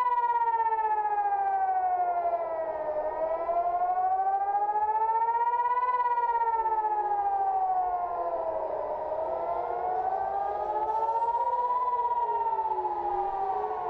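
Air-raid warning sirens wailing, the pitch slowly rising and falling about every six seconds. A second siren, out of step with the first, overlaps it from about halfway through.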